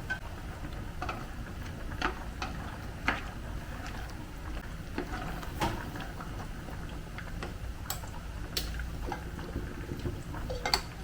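Scattered light clicks and clinks of small household items being handled, irregularly about once a second, over a low steady hum.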